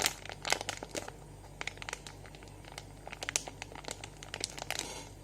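Plastic packaging crinkling and crackling as a squishy toy is handled in it, a scatter of small sharp crackles that is busiest near the start and again from about three seconds in.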